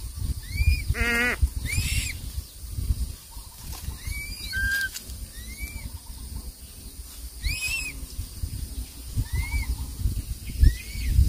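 Crested serpent eagle chick's short, high, arched cheeps, repeated every second or two, as it begs while the adult feeds at the nest. A single quavering, bleat-like call about a second in, over a low rumbling underneath.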